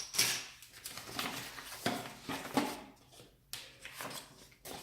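Plastic miniature bases being handled: irregular light clicks and rustles of plastic, thinning out in the second half.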